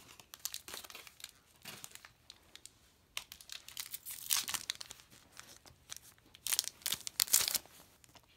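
Foil booster pack wrapper crinkling and tearing as it is pulled open by hand, in irregular bursts that are loudest about four seconds in and again near seven seconds.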